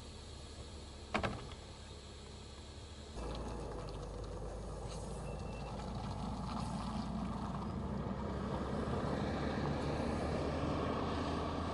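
Stryker eight-wheeled armored vehicle: one sharp metallic clank about a second in over a low idle, then its diesel engine and tyres get abruptly louder and keep building as it pulls away.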